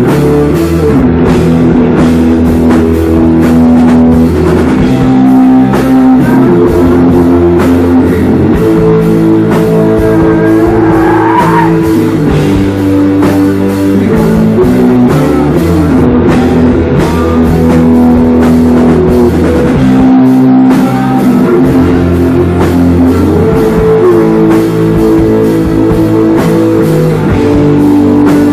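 Live rock band playing loudly: electric guitar chords over a drum kit, with a short rising glide about eleven seconds in.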